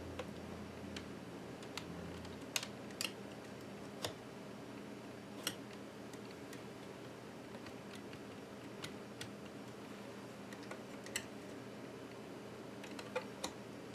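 Scattered sharp clicks and light taps of plastic as a stuck iBook G4 case part is pried against its engaged clips. About ten separate clicks come at uneven intervals over a faint steady hum.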